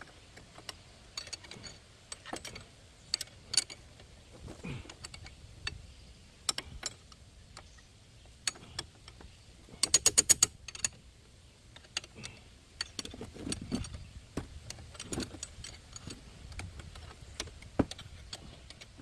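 Hand tools clinking and knocking, with a socket ratchet wrench clicking; about halfway through comes a quick run of ratchet clicks lasting under a second.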